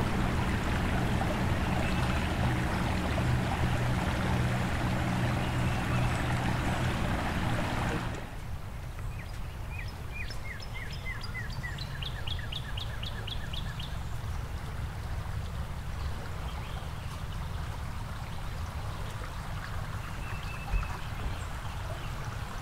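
Rushing floodwater, loud for the first eight seconds with a low steady hum underneath, then suddenly quieter. A bird sings a quick run of repeated chirps over the water about ten to fourteen seconds in.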